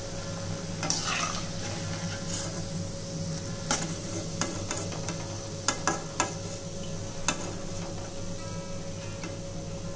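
Onion pakodas sizzling in hot oil in a metal kadai, with a handful of sharp metal clinks and scrapes in the middle as a perforated slotted spoon works against the pan to lift them out.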